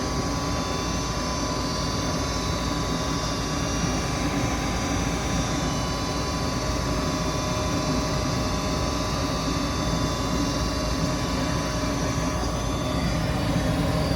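Goodman gas furnace running on natural gas, a steady roar of burners and fans with faint steady whining tones, while the gas valve pressure is being eased up and set against a manometer after the propane-to-natural-gas conversion.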